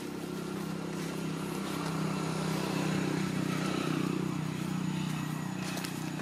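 A low, steady engine hum, like a motor vehicle going by, that grows louder toward the middle and then fades a little.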